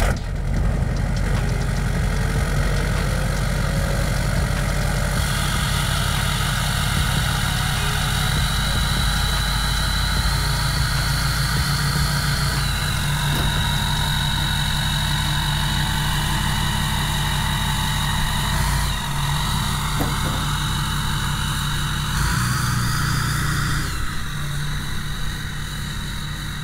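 2007 LBZ Duramax 6.6-litre turbo-diesel V8 pickup running at idle as it creeps forward, a steady diesel rumble. A thin high whine sits over it and shifts in pitch a few times.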